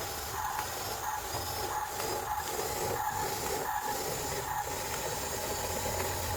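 Battery-powered toy running, with a steady whine and a hissing, regular pulsing about one and a half times a second.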